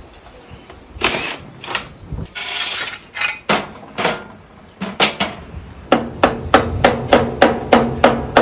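Hammer blows during brush replacement on a kelp-washing machine: a few scattered strikes, then from about six seconds in a steady run of about four ringing blows a second.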